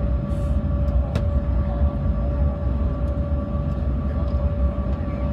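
Jet airliner cabin noise while taxiing: the engines' steady whine over a low, continuous rumble, with a single sharp click about a second in.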